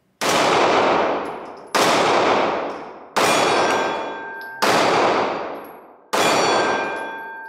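Ruger LC9s compact 9mm pistol firing five shots about one and a half seconds apart, each followed by a long ringing decay.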